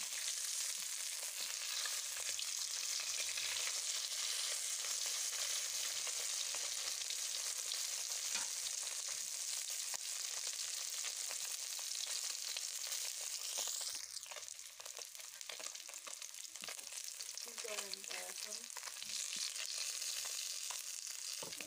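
Taki fish (spotted snakehead) sizzling steadily as they fry in hot oil in a karahi, with a metal spatula now and then turning and scraping them. The sizzle quietens a little about two-thirds of the way through.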